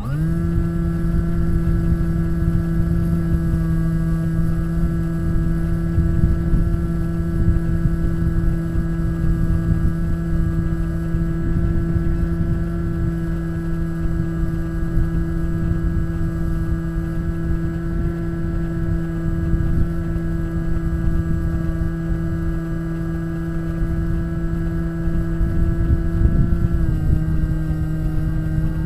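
Electric motor and propeller of a Bixler RC glider spinning up at the start, then running at a steady whine at one pitch, dropping slightly in pitch near the end as the throttle eases, with wind rushing over the onboard camera.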